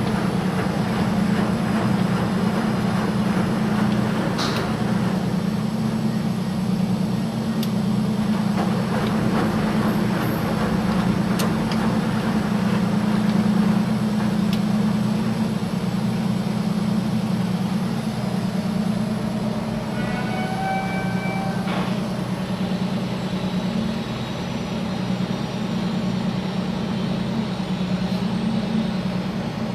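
A machine running steadily with a low hum and a rattling noise over it. A short high-pitched tone sounds briefly about two-thirds of the way through.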